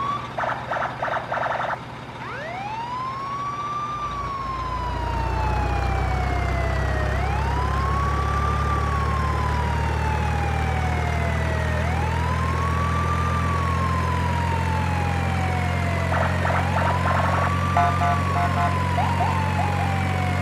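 A siren wailing, each cycle rising quickly and then falling slowly, repeating about every four and a half seconds, over a steady low engine-like drone that comes in about four seconds in. Near the start and again about sixteen seconds in, a rapid pulsing tone sounds for a second or two.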